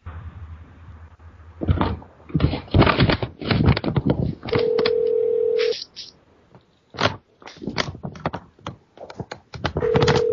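Telephone ringback tone heard over the line, two steady rings about a second long each, while the call to the business waits to be answered. Clicks and rustling noise on the line come between the rings.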